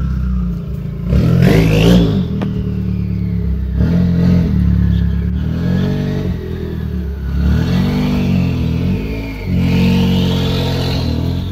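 Subaru WRX's turbocharged flat-four engine being revved repeatedly while parked, the revs rising and falling about five times. A high whine climbs and falls with each rev.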